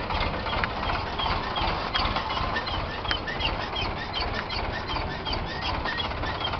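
Sonalika DI 47RX tractor's diesel engine running steadily as it circles the field, with repeated short high chirps, two or three a second, through most of it.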